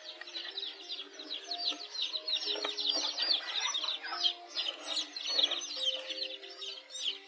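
A brood of newly hatched chicks peeping continuously: many quick, high-pitched, falling peeps overlapping one another.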